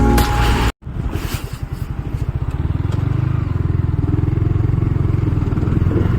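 Yamaha R15 single-cylinder motorcycle engine running steadily while riding, with an even throbbing pulse. It starts after a brief snippet of music cuts off just under a second in.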